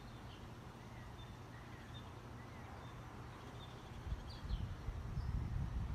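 Outdoor ambience: faint, scattered bird chirps over a low wind rumble on the microphone, the wind buffeting more strongly in the last couple of seconds.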